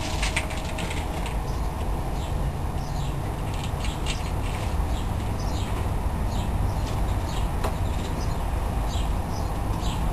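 Small birds chirping, short high calls repeated every second or so, over a steady low rumble.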